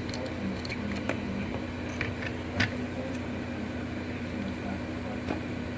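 Hot air rework gun blowing steadily while it heats a phone's charger port for removal, a constant fan hum with a steady low tone. A few sharp small clicks of tools against the board come through, the loudest about two and a half seconds in.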